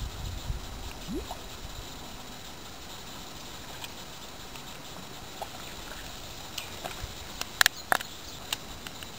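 Steady outdoor background hiss with a little low rumble at first, and a few sharp clicks close together about three-quarters of the way through.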